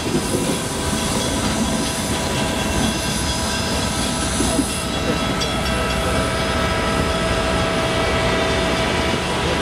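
Passenger cars rolling slowly past on a curving track: a steady rumble of steel wheels on rail, with a constant high squeal from the wheel flanges on the curve.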